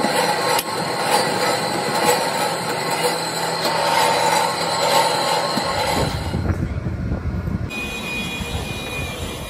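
Loud, steady workshop machinery noise with a high whine running through it. About six seconds in it changes to a lower rumble.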